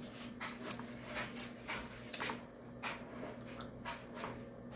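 Scattered soft clicks and rustles of a phone camera being handled and turned around, over a steady low appliance hum.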